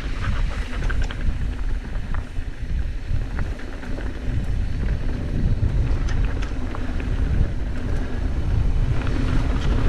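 Wind rumbling on a GoPro's microphone as a mountain bike rolls down a gravel dirt road, with knobby tyres crunching over loose stones and scattered small clicks and rattles from stones and the bike.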